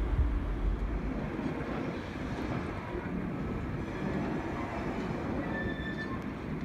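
Heavy low rumble of a train fading away over the first second or so, then the steady, quieter rumble of a distant Class 08 diesel shunter at work in a rail yard.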